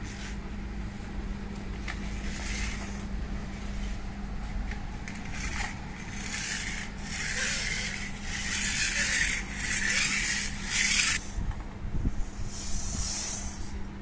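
Plastic toy car and a chain of clothespins pushed and dragged across a concrete floor: irregular scraping and rubbing in bursts, busiest through the middle, over a steady low hum.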